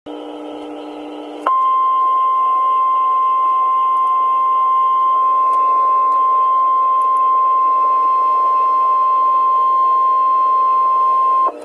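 NOAA Weather Radio warning alarm tone: a single steady 1050 Hz tone that comes on about a second and a half in, holds for about ten seconds and cuts off suddenly near the end, heard through a weather radio receiver over a steady background hiss and hum. The tone signals that an urgent warning broadcast follows.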